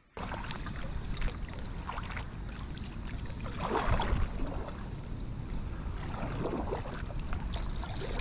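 Kayak paddle strokes dipping and splashing as the kayak is paddled along, the loudest stroke about four seconds in, over a steady rumble of wind on the microphone.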